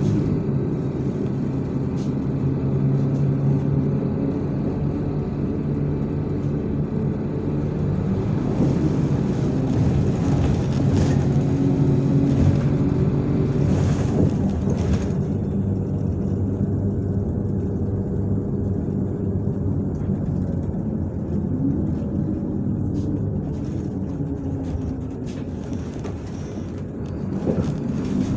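MAZ-103 city bus heard from inside the passenger cabin while under way: the engine runs steadily with road and tyre noise. Near the end the engine note rises as the bus pulls away again.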